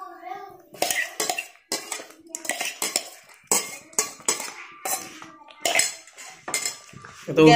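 A metal spoon scrapes and knocks against a steel bowl, tipping tomato-onion paste into a steel kadai. The clinks are sharp and repeated, about two or three a second.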